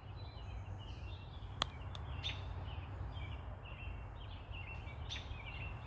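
Many birds chirping in the trees, a dense, noisy chorus of short overlapping calls, with one sharp click about one and a half seconds in.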